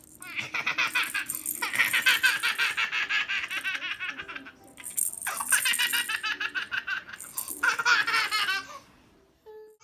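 A baby laughing hard in long runs of rapid, pulsing giggles, three bouts with short breaks between them.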